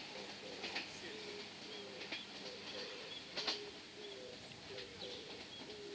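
Pigeons cooing, a steady run of short low notes repeating every fraction of a second, with a few brief high chirps over them.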